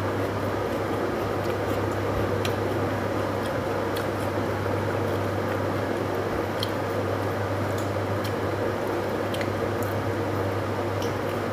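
Steady electrical hum and rushing background noise, with faint scattered clicks and squishes of eating: chewing and tearing a roti by hand.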